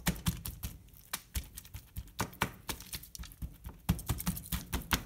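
Hands mashing and patting dry rub into a slab of raw pork spare ribs on aluminium foil: an irregular run of quick taps, slaps and foil crinkles.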